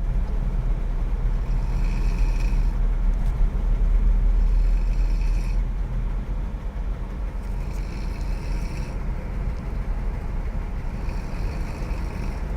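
A person snoring inside a moving vehicle: four snores about three seconds apart, over the steady low rumble of the vehicle on the road.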